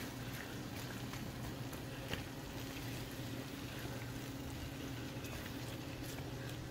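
Chopped guar beans with a tomato and green-chili paste sizzling in a pan as a spatula stirs them, with a few light clicks, over a steady low hum.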